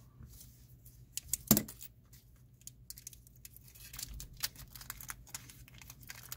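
Light clicks and rustling of small parts being handled on a desk, with one sharper knock about a second and a half in as the metal lock-holder sphere is set down.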